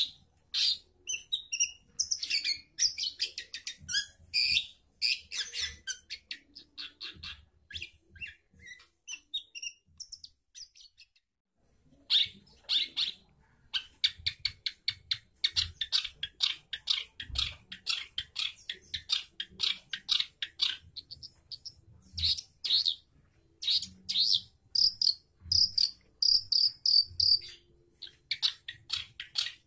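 Long-tailed shrike (cendet) in full song in a cage: fast runs of sharp, high chattering chirps and squeaky notes, broken by a pause of a second or so about ten seconds in. Higher, clearer repeated notes come late on.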